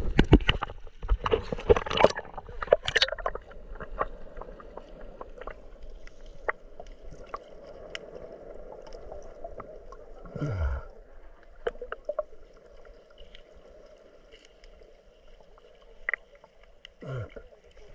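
Water splashing around a camera for the first few seconds as it goes under, then the muffled sound of the microphone underwater: a steady dull hum with scattered ticks. A short falling tone comes about ten seconds in and again near the end.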